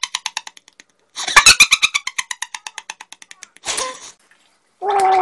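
A young man's strained, stuttering vocal cries, a reaction to the sourness of Super Lemon candy: two long strings of rapid pulses that slow as they fade, a short burst, then a steady held moan that starts just before the end.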